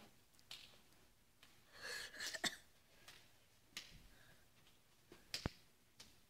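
Faint, scattered sharp slaps and taps of hands and forearms meeting as a training-knife attack is parried and trapped, the loudest about two and a half and five and a half seconds in, with a brief rustle just before the first.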